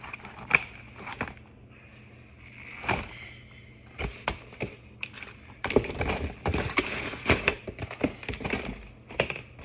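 Hands rummaging and handling small hard objects: a string of clicks, taps and knocks with some rustling, sparse at first and busy through the second half.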